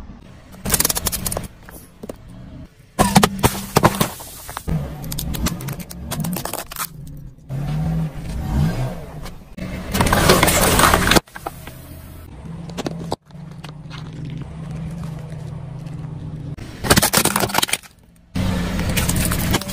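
Car engine running slowly as its tyre rolls over and crushes a series of objects: crackling and crunching bursts, with a long spraying burst about ten seconds in as a plastic soda bottle fitted with a balloon gives way, and plastic cracking near the end as a plastic toy truck breaks apart. The sounds stop and start abruptly several times.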